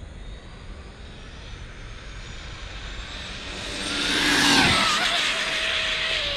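Brushless-motor Arrma Infraction RC truck on 8S power making a high-speed pass: a high whine grows louder to a peak about four and a half seconds in, drops in pitch as the truck goes by, then fades.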